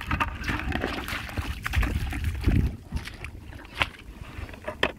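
Shallow muddy water sloshing and splashing as crabs are caught by hand, over a low rumble of microphone handling, with a few sharp clicks near the end.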